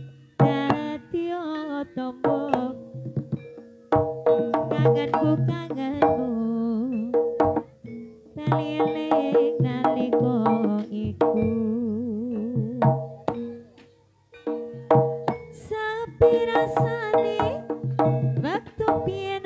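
Javanese jaranan gamelan music played live: hand-drummed kendang beats and struck metal instruments under a wavering melodic line. The music dips briefly twice and then picks up again.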